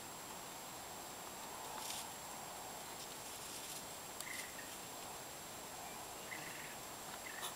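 Quiet outdoor ambience: a steady faint hiss, with a few short, faint high chirps in the second half and a couple of soft clicks.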